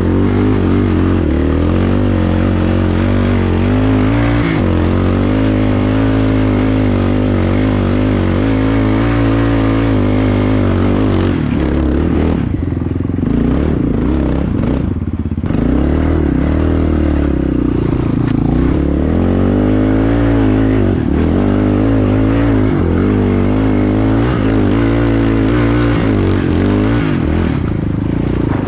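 Yamaha Raptor 660 quad's single-cylinder four-stroke engine running under throttle while riding, its revs rising and falling continuously. About twelve seconds in it eases off for a few seconds, then picks up again.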